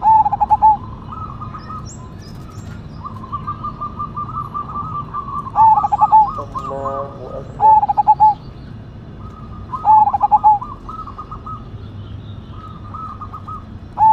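Zebra dove (perkutut) cooing: short, loud, stuttering coo phrases repeated every few seconds. A fainter quick trilling, higher in pitch, runs between them.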